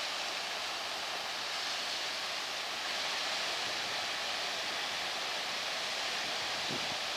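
Steady seaside ambience: an even rushing hiss of wind and surf with no distinct events.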